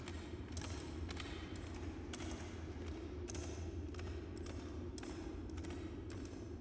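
Footsteps, about two a second, over a steady low drone of dungeon ambience, as added sound effects.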